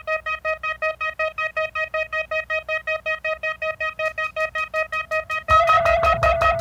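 Synth-punk song intro: a single synthesizer note pulsing rapidly, about five times a second. About five and a half seconds in, the full band comes in louder, with drums and bass under the keyboard.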